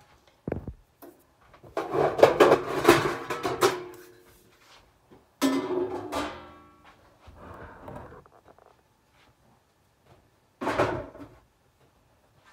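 Kitchen handling noise from a metal cookie sheet and a baking dish: a knock, a rattling clatter, then a sharp clang that rings briefly about five and a half seconds in, and another knock near the end.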